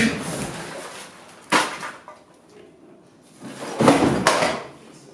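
Crashing and banging as household things are thrown about a room, starting with a plastic trash can flung over and its rubbish spilling. There is a sharp crash about one and a half seconds in, then a louder burst of bangs around four seconds in.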